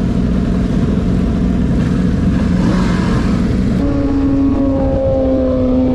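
Sport motorcycle engine running with wind noise, heard from the rider's position; about four seconds in it settles into a steady, higher-pitched drone at cruising speed.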